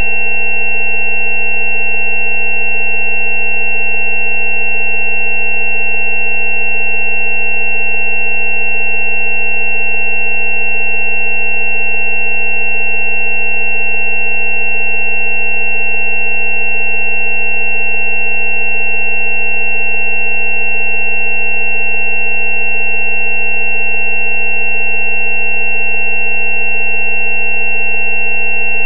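Synthesized frequency-therapy tones: a steady 190 Hz hum layered with several higher steady tones, the loudest a high, thin whine, all held without any change.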